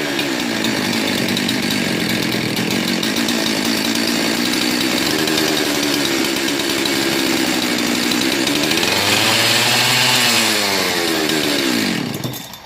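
Husqvarna 372 XP two-stroke chainsaw engine running steadily. About nine seconds in its pitch dips and comes back up, and near the end it winds down and stops. The saw has a split carburetor connector boot, a vacuum leak that gives erratic running.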